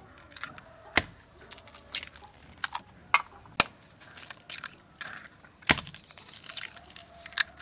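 Duck eggshells being cracked one after another: a string of sharp cracks, spaced a second or more apart.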